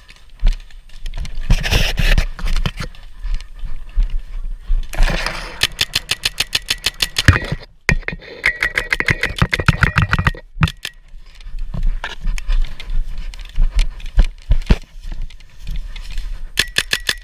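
Paintball markers firing: scattered single shots and long rapid strings of about eight shots a second, the fastest in the middle of the stretch.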